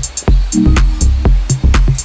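Electronic background music with a steady beat: a heavy kick drum and deep bass notes about twice a second, with sharp percussion hits between them.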